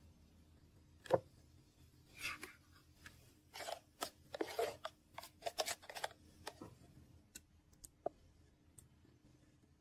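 A metal spoon scraping thick sauce out of a plastic blender beaker: a string of short scrapes and knocks against the plastic, with a few lighter clicks near the end.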